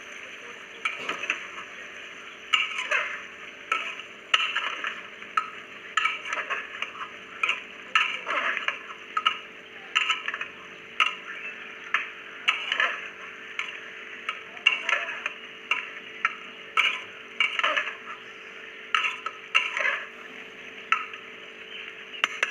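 Spatula stirring and scraping potatoes in a sizzling sesame-paste masala inside a pressure cooker pot. The spatula clinks and scrapes against the pot at an irregular rate, a few times a second, over a steady frying sizzle.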